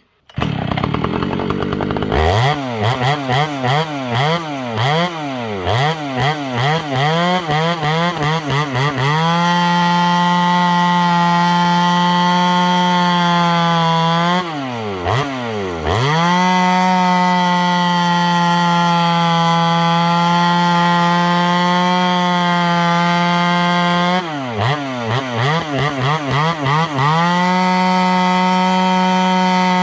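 Pioneer P51 two-stroke chainsaw, fitted with a new bar and chain, running. It starts suddenly, revs up and down in quick throttle blips, then holds at high revs for long steady stretches, dropping back briefly twice with more blips.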